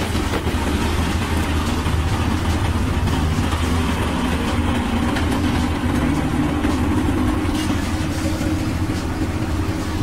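Three-wheel road roller's diesel engine running steadily, a low, even hum that does not change.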